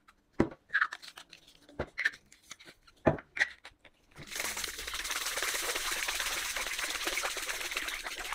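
A few knocks and clicks as the hydroponic nutrient bottles are handled, then about four seconds in a kitchen tap starts running steadily as water goes into the bottles.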